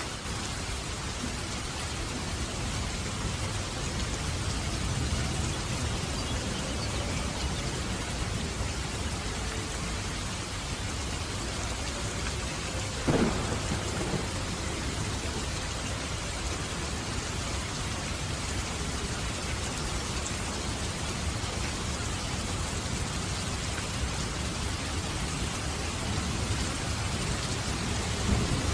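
Steady rain falling with a low thunder rumble underneath, and one sharp crack of thunder about halfway through.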